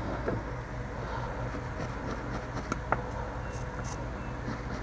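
Steady low hum of a small fan running, with a couple of faint clicks.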